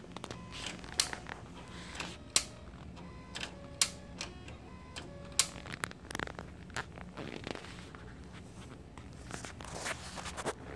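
Optical DVD drive in an Alienware Aurora R5 desktop clicking sharply four times, about a second and a half apart, with short whirring tones in between, over a steady low hum: the drive is malfunctioning. Softer scraping noises follow in the second half.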